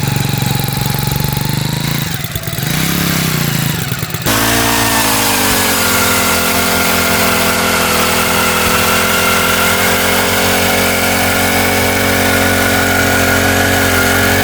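Four-stroke gas ice auger engine running at low speed, then throttled up sharply about four seconds in and running steadily at high speed as it drills a hole through thick lake ice.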